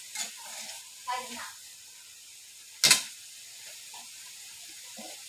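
Diced meat frying in an aluminium wok with a steady low sizzle. About three seconds in comes one sharp metallic clack as the metal ladle is set down in the wok.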